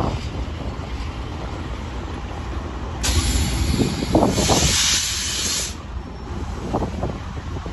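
Train air brakes venting: a loud hiss that starts suddenly about three seconds in and cuts off sharply under three seconds later. A low rumble runs underneath.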